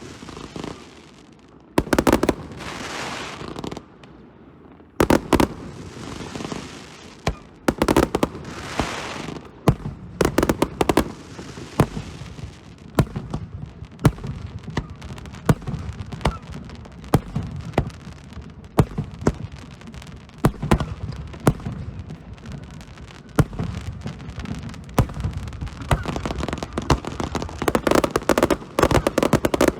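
Aerial fireworks display: repeated sharp shell bursts, some followed by a few seconds of crackling, coming thick and fast near the end.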